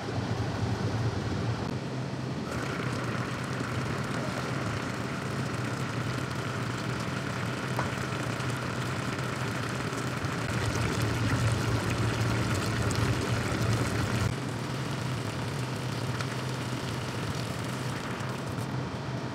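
Pot of rice, vegetables and broth boiling hard, bubbling steadily, with a steady low hum underneath. The sound shifts abruptly about two and a half seconds in and again about fourteen seconds in.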